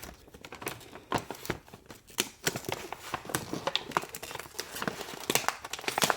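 Packaging being handled and unwrapped by hand: irregular crinkles, rustles and small taps and clicks.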